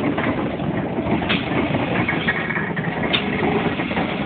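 Steam locomotive No. 3205, a GWR 2251 class 0-6-0, heard at close range: a loud, steady noise with a few sharp clicks.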